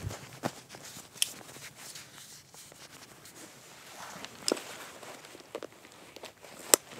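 Gear handling: a hunter's clothing rustling as he fastens a chest-worn pack harness over his vest, with a few separate sharp clicks, the loudest near the end.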